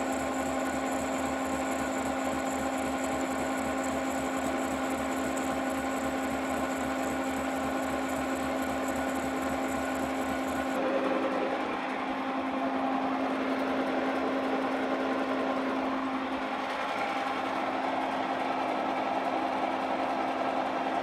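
Milling machine running a slitting saw through a copper block: a steady machine hum with a strong low tone and the noise of the cut. About eleven seconds in the sound shifts and loses its low pulsing.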